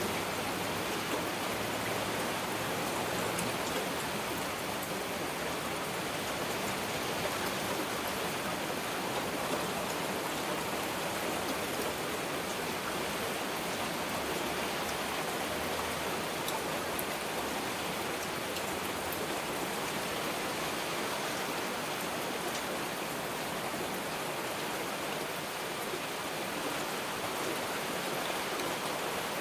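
Heavy rain falling steadily: an even, constant hiss with scattered drop ticks and no break.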